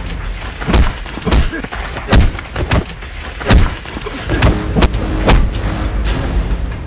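Blows landing in a staged fight scuffle: a series of about eight sharp, heavy thuds at irregular intervals, over a steady low background.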